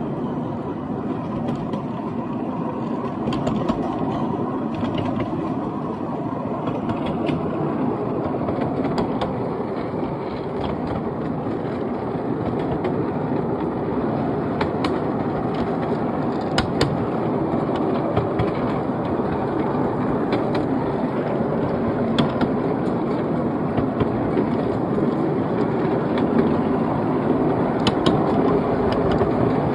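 Seven-carriage miniature railway train running along the track, heard from on board: a steady rumble of wheels on rail with occasional sharp clicks.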